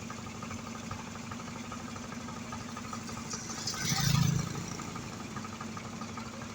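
A road-construction machine's engine running steadily at idle. About four seconds in there is a brief louder surge with a hiss.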